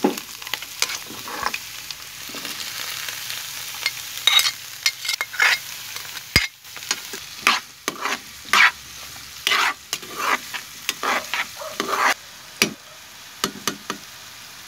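Cubed bottle gourd sizzling in hot oil in a frying pan while a metal spatula stirs it, scraping and clacking against the pan in quick, irregular strokes. The stirring stops near the end, leaving a quieter steady sizzle.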